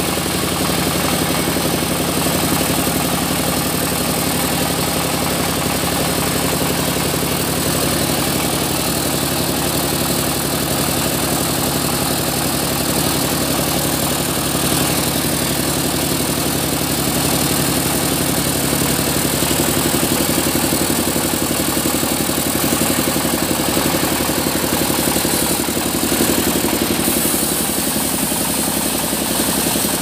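Band sawmill's engine running steadily under a continuous drone, its low tone shifting slightly about two-thirds of the way through.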